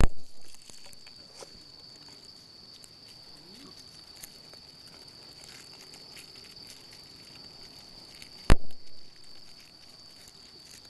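Insects buzzing steadily on one high note, with faint rustling as a cord is tied off at a tree in dry leaf litter. A single sharp click comes about eight and a half seconds in.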